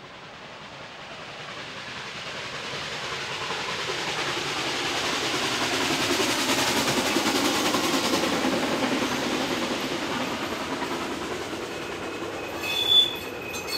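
A car passes on the road and a train approaches and rolls onto a stone-arch railway bridge, its wheels clattering. Near the end comes a sharp clank, and a steady high-pitched wheel squeal starts.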